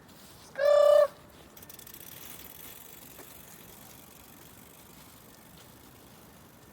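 A single loud, high-pitched, squawk-like vocal cry about half a second in, lasting about half a second on a nearly steady pitch, followed by faint hiss.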